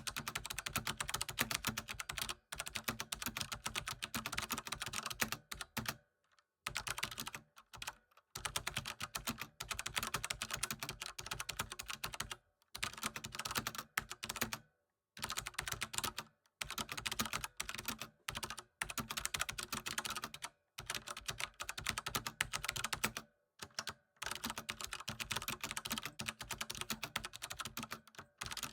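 Steady typing on a computer keyboard: fast runs of key clicks broken by brief pauses every few seconds.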